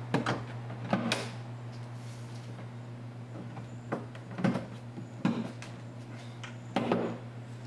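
Plastic trim panel on a 2001 Volkswagen Beetle's hatch lid being pushed into place by hand: a series of short, sharp snaps and knocks as its retaining clips are pressed in, spaced irregularly.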